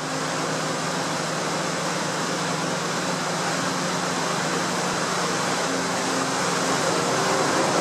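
Steady machinery hum with a rushing noise, growing slightly louder near the end.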